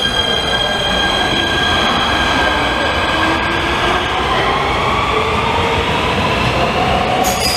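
Nuremberg U-Bahn train pulling away from the platform and accelerating, its electric traction motors whining in several tones that rise steadily in pitch over the rumble of the wheels on the rails.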